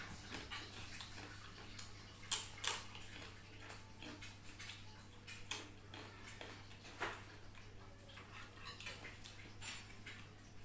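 Close-up eating sounds: crunching kerupuk crackers and chewing, with irregular crunches and clicks, the loudest a little over two seconds in, and cutlery clinks.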